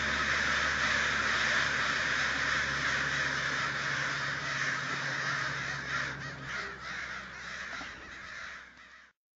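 A flock of crows cawing, many calls overlapping into one continuous mass, fading out over the last few seconds.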